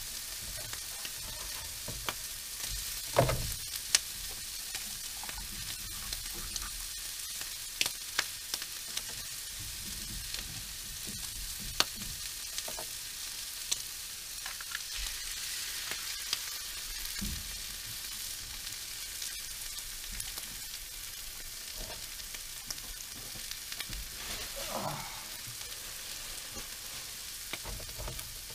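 Meat, onion and bell peppers sizzling steadily in a nonstick frying pan on a portable camp stove, with a few sharp clicks and knocks scattered through.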